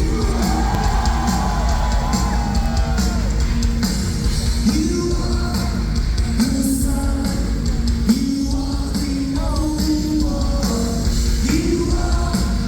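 Live rock band playing loudly with a lead singer holding sustained notes over the guitars, bass and drums.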